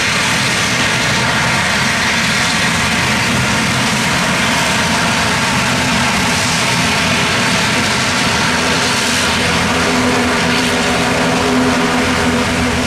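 Aircraft turbine engines running loud and steady, a dense stack of steady tones over a rushing hiss; a low tone grows stronger near the end.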